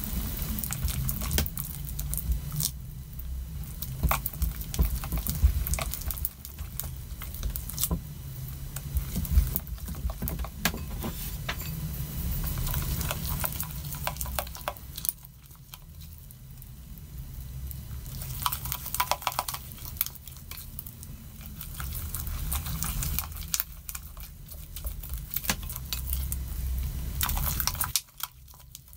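Silicone spatula stirring and scraping a wet sugar mixture around a glass bowl: irregular scraping and small clicks, easing off for a couple of seconds about halfway through.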